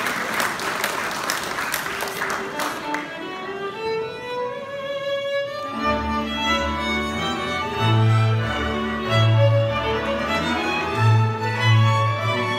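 A Moravian cimbalom band starts a folk song: a violin plays a solo opening phrase from about three seconds in, and about six seconds in the full band joins, with double bass notes under the violins and cimbalom. Applause dies away over the first three seconds.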